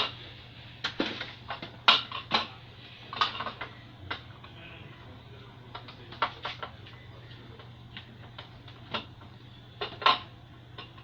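Irregular clicks and clatter of small hard plastic and metal parts being handled, some in quick pairs, over a steady low hum.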